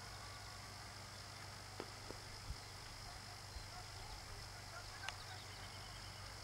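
Faint outdoor ambience: a steady high hiss and low hum, with a few short sharp clicks around two seconds in and again about five seconds in.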